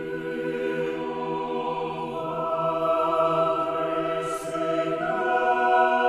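Mixed choir singing a cappella in Latin, holding sustained chords that swell steadily in loudness. The harmony shifts to a new chord about two seconds in and again at about five seconds.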